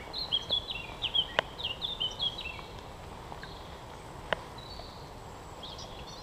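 A songbird singing a quick run of short, high, falling whistles through the first half, over a steady low background noise. Two sharp clicks come about a second and a half and about four seconds in.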